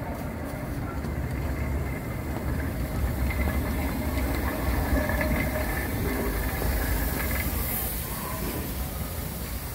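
Steam train running: the low rumble of the locomotive and its wagons on the rails, with steam hissing. It swells in the middle and eases again, with faint high squeals now and then.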